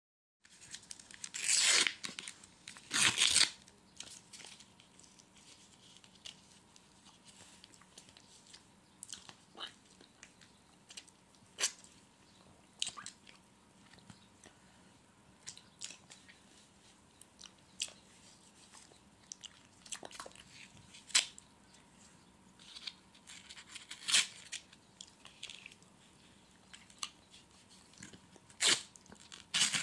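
Close-up eating sounds of someone eating ice cream: scattered crunches and mouth clicks, with two loud rustling bursts about two and three seconds in and another near the end.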